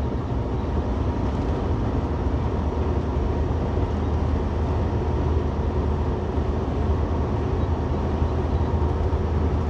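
Cab noise of a semi truck cruising on the highway: a steady low diesel engine drone under even tyre and road noise.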